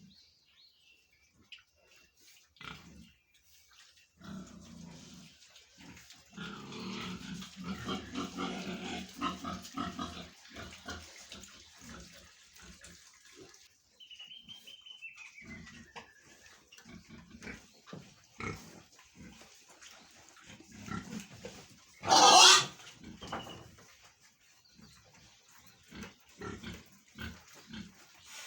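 Pigs grunting on and off, busiest for a few seconds about a quarter of the way in, with one short, loud squeal about three-quarters of the way through.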